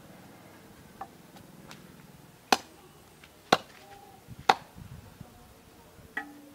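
Meat cleaver chopping pork on a wooden chopping block: three sharp chops about a second apart in the middle, with lighter knocks before and after.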